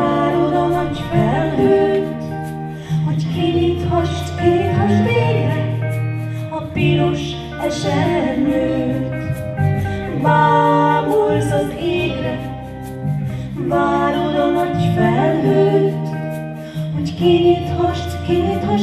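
Female voices singing a song into microphones, accompanied by electric guitars.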